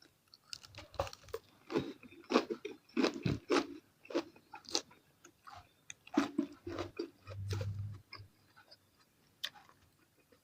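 Close-up mukbang eating sounds: a person biting and chewing fish balls, with irregular wet smacks and clicks. A brief low hum comes about seven seconds in.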